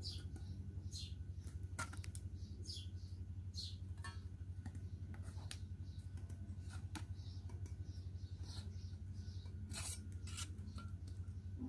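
Yellow-handled shears cutting around the edge of a thin sheet of metal, a series of short snips at irregular intervals, over a steady low hum.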